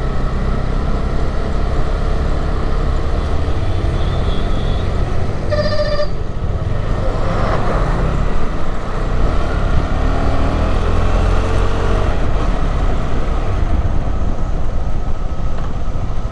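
Motorcycle riding: steady engine and wind rumble on the microphone. A vehicle horn honks once, briefly, about six seconds in.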